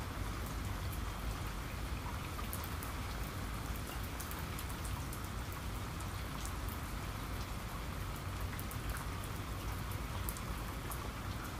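Steady rain patter sound effect with many faint scattered drop ticks over a low rumble, cutting in suddenly at the start.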